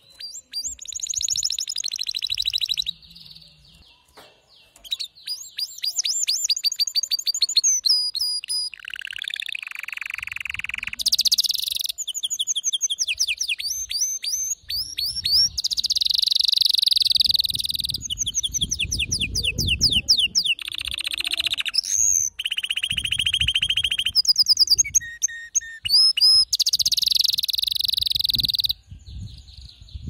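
Male domestic canary singing in excited full song: a long run of high, rapid trills and rolls, the phrase changing every second or two with brief pauses between. A low rumble sits under the song at times in the second half.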